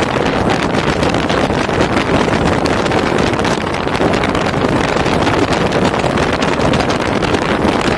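Steady rush of wind and road noise from a car driving at speed, with wind buffeting the microphone.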